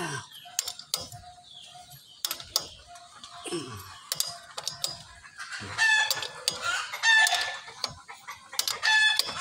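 A rooster crowing, loudest about six seconds in and again near the end, over scattered sharp clicks and knocks of hand tools on metal.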